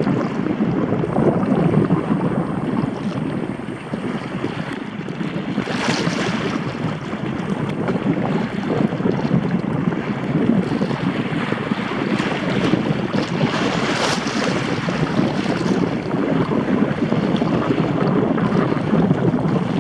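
Sea water rushing and washing, mixed with wind buffeting the microphone. Two louder hissing washes come about six and fourteen seconds in.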